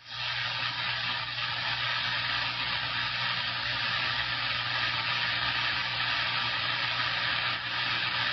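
CB radio receiver hissing with static: a steady rush of noise with a low hum underneath, as when the channel's squelch is open or a carrier is keyed with no voice.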